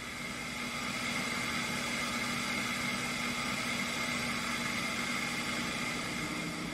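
A steady mechanical hum with a faint high whine, growing a little louder in the first second and then holding even.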